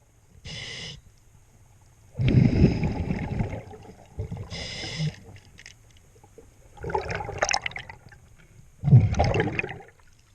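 A scuba diver breathing through a regulator underwater: short hissing inhalations alternate with louder gurgling bursts of exhaled bubbles, several breaths in turn.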